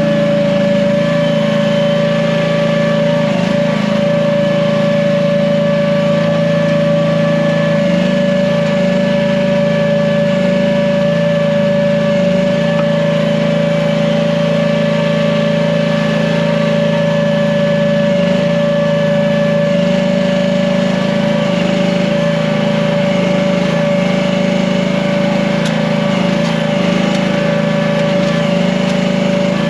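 Small gasoline engine of an AGT H15 mini excavator running steadily, with a constant high tone over the engine note.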